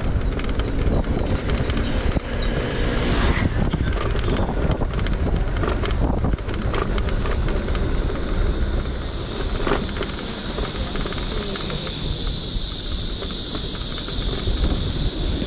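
Car driving through city traffic: steady road and engine rumble with wind buffeting the microphone. A high steady hiss joins about halfway through and grows stronger.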